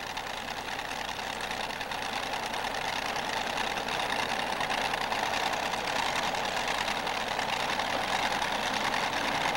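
Modified pulling tractor's engine idling steadily, growing gradually louder.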